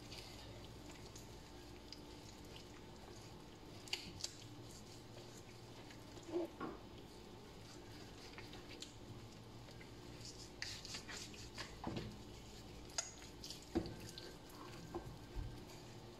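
Hands rubbing and squeezing a whole raw chicken coated in flour on a plastic cutting board, scrubbing it clean: faint wet squishing and rubbing with scattered small clicks and taps.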